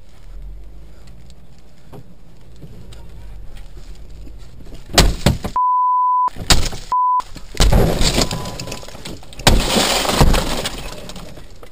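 Sledgehammer blows smashing a police car's laminated windscreen, heard from inside the car: a series of heavy impacts with crunching, crackling glass, starting about five seconds in. Twice, near the first blows, the audio is replaced by a steady censor bleep.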